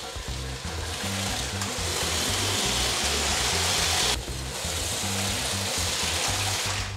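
Background music with a stepping bass line under the steady hissing whir of a motorised Lego City cargo train running around plastic track. The whir drops out briefly about four seconds in, then resumes.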